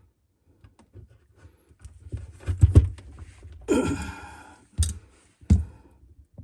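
Hand-work noises from splicing the valve's wiring: scattered clicks and knocks, a cluster of louder knocks about two and a half seconds in, a hissing scrape lasting most of a second, and two sharp clicks near the end.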